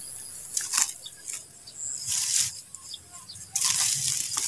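Dry undergrowth and leaves rustling and crackling in four irregular bursts, the longest near the end, over a faint steady insect drone.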